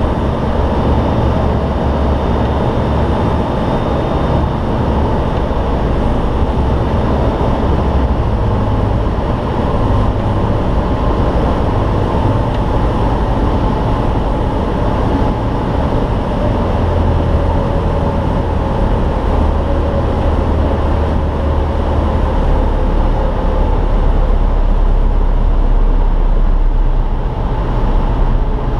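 Engine and propeller of a KhAZ-30 light aircraft running with wind noise, heard from inside the cockpit through the landing approach to the ground. A steady drone, a little louder near the end.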